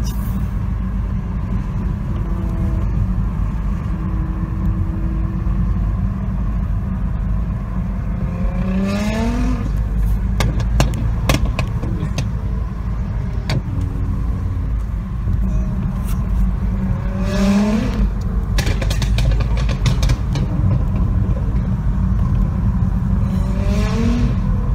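Nissan GT-R R35 twin-turbo V6 with an aftermarket exhaust, heard from inside a following car: it revs up three times under acceleration, the pitch rising each time, and the first two revs are followed by a run of sharp exhaust pops and crackles. A steady low road and cabin rumble lies underneath.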